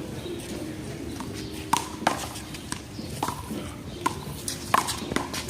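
A handball rally: a series of sharp smacks, about seven, as the small rubber ball is struck by hand and bounces off the wall and the court.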